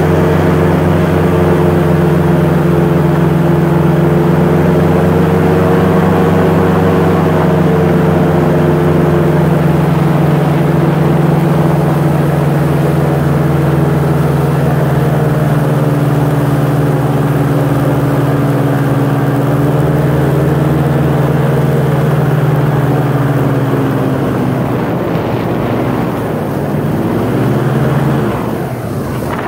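Airboat's engine and air propeller running under way, a loud steady drone. Its pitch sinks slowly through the middle, then wavers and the level dips briefly near the end as the throttle eases.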